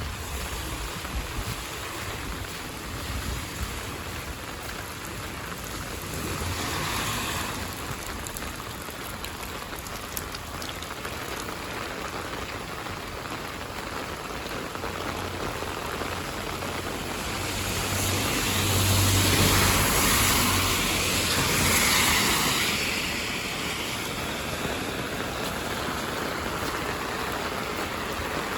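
Heavy rain falling steadily. There are two louder rushing swells, a short one about a quarter of the way in and a longer, louder one about two-thirds of the way through.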